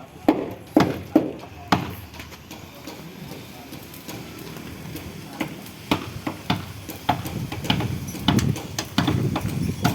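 Hammer blows on the wooden planking of a boat hull under repair: four sharp knocks in quick succession in the first two seconds, then scattered knocks again from about halfway, closer together near the end.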